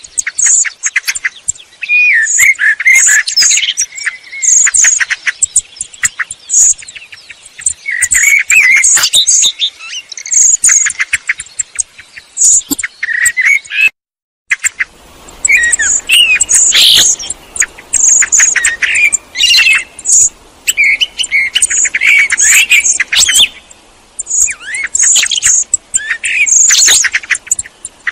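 Male Eurasian blackbird singing: repeated phrases of warbled lower notes mixed with high, thin twittering notes, with short pauses between phrases. There is a brief break about halfway.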